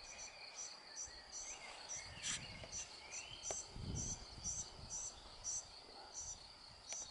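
High, rhythmic insect chirping, short double chirps repeating about twice a second over a steady high hum, with a brief low rumble near the middle.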